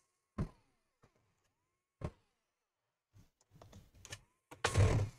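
Knocks and clatter from handling a laptop and a screwdriver on a workbench: two sharp knocks, then scattered clicks and a louder rustling clatter near the end.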